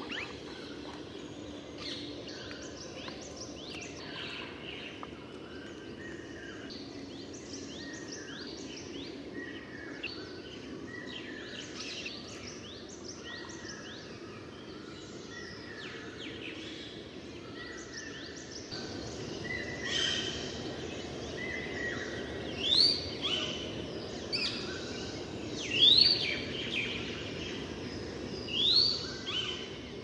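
Several wild birds calling and chirping over a steady low background hum, the calls growing busier past the middle, with three loud rising whistles about three seconds apart near the end.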